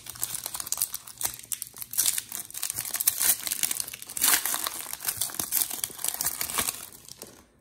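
Foil wrapper of a Donruss football card pack crinkling and tearing as it is ripped open by hand and the cards are slid out; the crinkling dies away shortly before the end.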